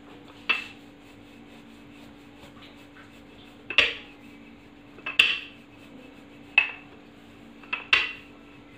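Wooden rolling pin clacking against a marble countertop as dough is rolled out: five sharp knocks, the last four a little over a second apart.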